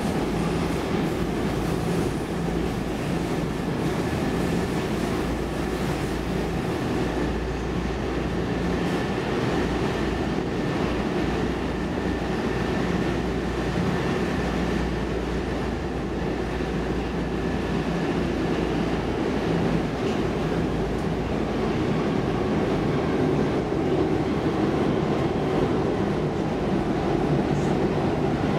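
Stockholm Metro C14 subway car running at speed, heard from inside the passenger cabin: a steady rumble of wheels on rail and running gear.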